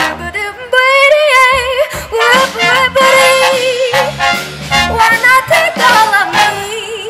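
Live brass band with sousaphone and drums playing a swing jazz standard, a female singer's wordless lead line held with vibrato on top of the horns.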